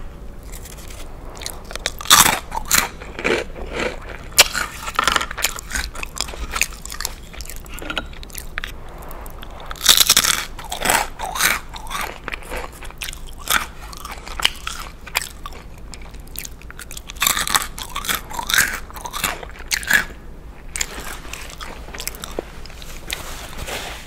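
Close-miked eating of a grilled cheese sandwich: the toasted bread crunches and is chewed in irregular bursts, loudest about two seconds in, around ten seconds in, and again between about seventeen and twenty seconds in.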